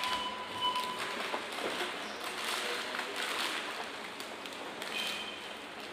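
Groceries and plastic bags rustling and tapping on a checkout counter. A checkout barcode scanner beeps early on and gives a short beep about five seconds in.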